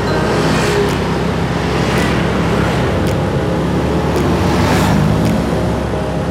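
Motorcycle riding in slow traffic: its engine and road noise running steadily, with the sound of surrounding cars.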